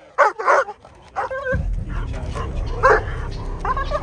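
German Shepherd barking in about five short, high, yelping barks as it lunges on the leash toward the bite-sleeve decoy. From about a second and a half in, a steady low rumble runs under the barks.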